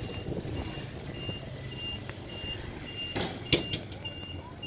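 A vehicle's reversing alarm beeping steadily, a bit under two high beeps a second. About three and a half seconds in, a single sharp metal clank as the steel boat rack is lowered onto the camper trailer.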